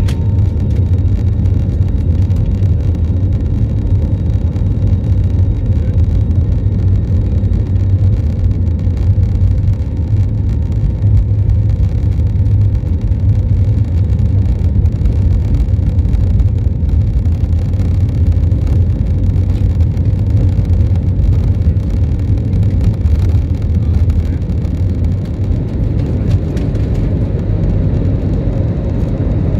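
Steady, loud, low rumble of an airliner cabin, jet engine and airflow noise heard from inside the plane.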